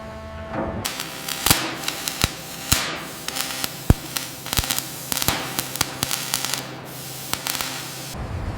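A steady spraying hiss full of sharp crackles and pops. It starts abruptly about a second in and cuts off suddenly near the end.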